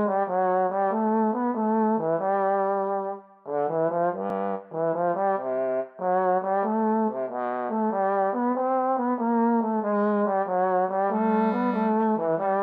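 Instrumental theme tune played on sampled brass instruments: a trombone-led melody in short notes over a bass line, with a brief break a little over three seconds in.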